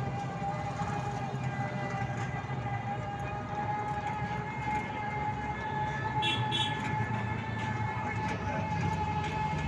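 Small open passenger vehicle under way, its motor giving a steady high whine that creeps slowly up in pitch over a low road rumble.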